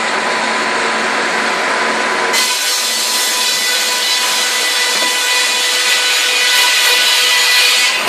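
Breast-bench circular saw ripping a pine flitch lengthwise on its carriage: the running blade's steady whine, then from about two seconds in the brighter, louder hiss of the teeth cutting through the timber.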